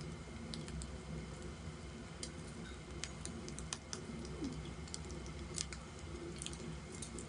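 Eating at a tabletop barbecue grill: scattered light clicks and taps from chewing and from chopsticks on the metal grill plate, over a low steady hum.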